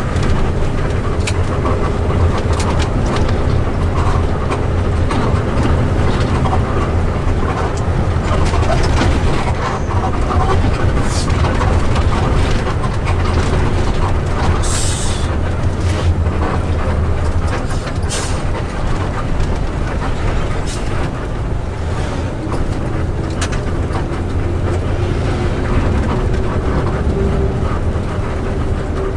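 Bus diesel engine running steadily under a low rumble, with road and traffic noise. A short hiss of air cuts in about halfway through.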